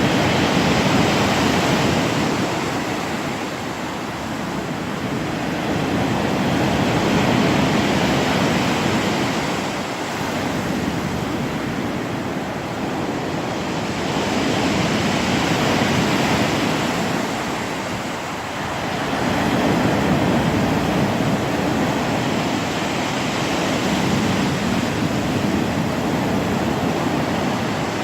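Black Sea surf breaking on the shore, a steady wash that swells and ebbs about every six seconds.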